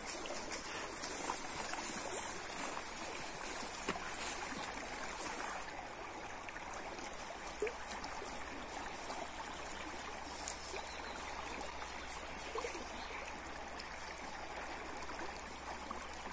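Shallow river running fast over a riffle: a steady rushing and trickling of water.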